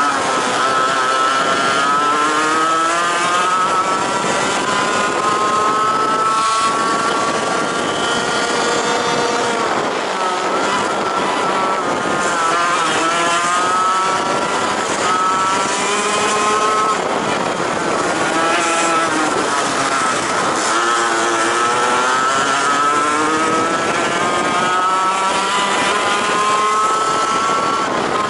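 Racing kart's two-stroke engine at full race pace, heard onboard: its note climbs steadily as the kart accelerates, then falls away each time the driver lifts for a corner, over and over through the lap.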